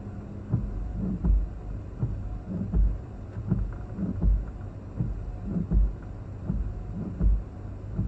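Strong tropical-storm-force wind gusting against the microphone: heavy low thuds about every second and a half over a steady noise of wind and rain.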